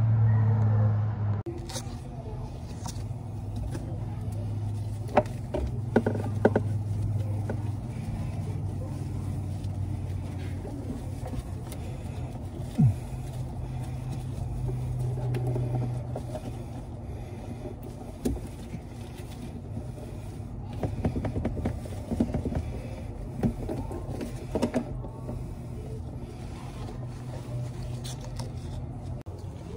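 Knocks and clicks of a white PVC kitchen-sink drain trap being handled and worked loose, over a steady low motor hum.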